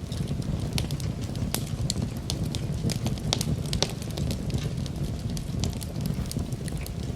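Campfire burning: frequent sharp crackles and pops over a steady low rumble of flames.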